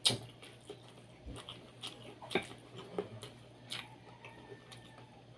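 Close-miked eating sounds: scattered wet mouth smacks and clicks of someone chewing boiled chicken, with a sharper click right at the start.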